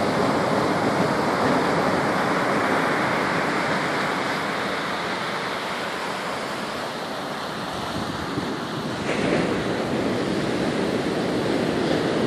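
Ocean surf washing onto a beach, a steady rush of breaking waves that eases off in the middle and swells again about nine seconds in.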